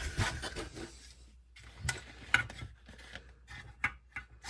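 Small RC shock parts being handled for reassembly: a rubbing, rustling stretch in the first second, then a few sharp clicks of small plastic and metal pieces.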